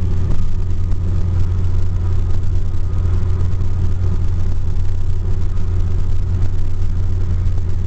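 Steady road and engine noise heard inside a moving car at freeway speed, a constant low hum with no sudden sounds.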